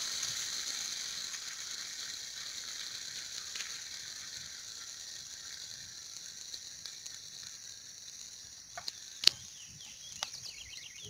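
Freshly fried fish steaks sizzling in a hot oiled pan as lime juice is squeezed over them: a hiss that is loudest at first and slowly dies down. A few sharp clicks come near the end, one of them much louder than the others.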